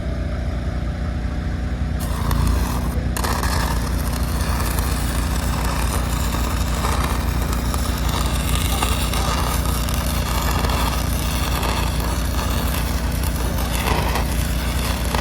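Stick-welding arc crackling and sizzling on steel corral pipe as the rod is whipped along the joint, striking about two seconds in, breaking off briefly, then running on steadily. A steady engine hum runs underneath.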